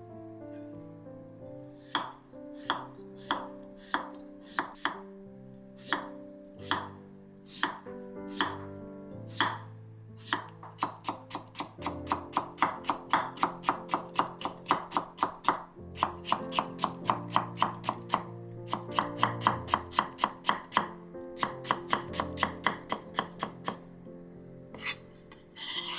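Kitchen knife chopping on a cutting board, most likely cutting potatoes into thin strips for a potato pancake. The strokes are slow and spaced at first, then a fast steady run of about four to five cuts a second from roughly ten seconds in, easing off near the end. Soft background music plays underneath.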